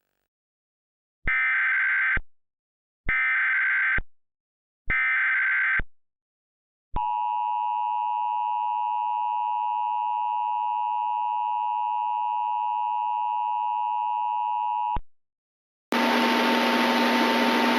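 Emergency Alert System header: three identical one-second bursts of SAME data tones, a second apart, then the EAS two-tone attention signal held steady for about eight seconds before it cuts off. Near the end a steady hiss with a low hum starts up.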